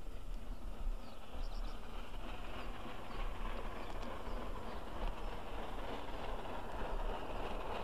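A3 class single-chimney Pacific steam locomotive No. 4472 Flying Scotsman working a train up a 1 in 175 gradient, heard from a distance and growing slowly louder as it approaches.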